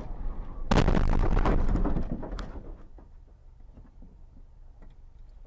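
Car collision heard from inside the car by its dashcam: a sudden loud crash about a second in, crunching on for about a second and a half before dying away to low road rumble.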